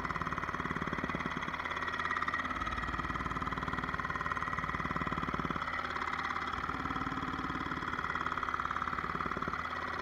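Pneumatic tamper hammering rapidly as it packs backfill soil around a wooden utility pole, with a few short pauses and restarts. An engine runs steadily behind it.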